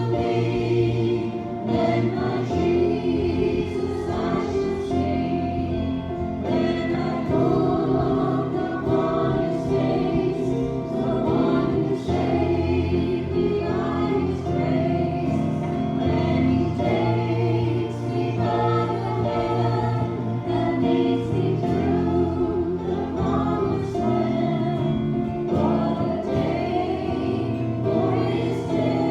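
A group of voices singing a gospel hymn together with music.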